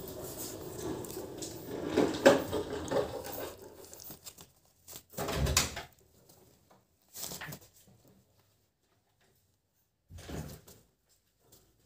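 American Bully puppies moving about and mouthing at each other in a wire crate: rustling and knocking against the crate, loudest about two seconds in, then a few short separate bumps.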